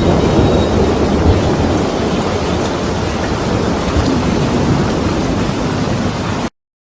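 Gale-force wind buffeting the microphone, a loud, dense low rumble of rushing storm noise that cuts off abruptly near the end.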